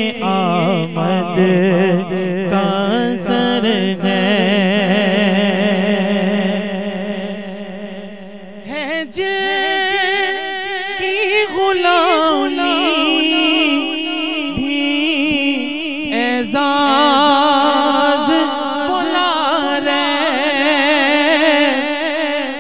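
Male voice singing a manqabat (Urdu devotional poem) in long, wavering melismatic phrases without clear words, over a steady held low note that steps up in pitch about halfway. The first phrase fades about eight seconds in before a new one begins.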